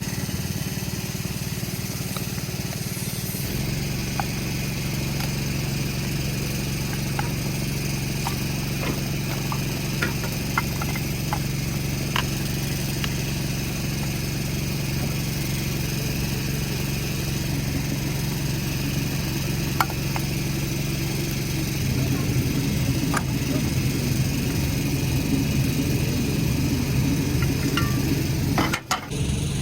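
Engine idling steadily, with a few light clicks and taps of hand tools.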